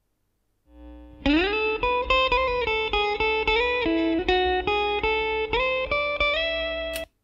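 Electric guitar played through an amp, a run of single plucked notes, over a steady low 60 Hz buzz of mains hum from the amp. The buzz comes in just before the guitar, and both cut off suddenly near the end.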